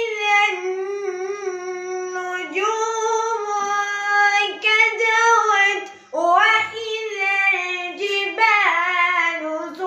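A boy reciting in a melodic chanted voice, drawing out long held notes that waver and turn, with a short breath about six seconds in.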